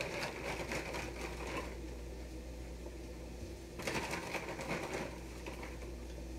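Croutons rattling and their plastic bag crinkling as they are shaken out of the bag onto a salad, in two quick bursts of clicks: one at the start lasting about a second and a half, another about four seconds in lasting about a second.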